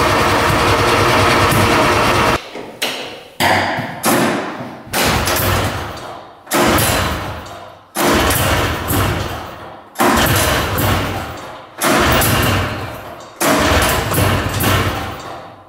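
The 400cc two-stroke engine of a 1970s mini off-road tank running steadily, then revved in a string of about nine sharp throttle blips, each snapping up loud and dying away over a second or two.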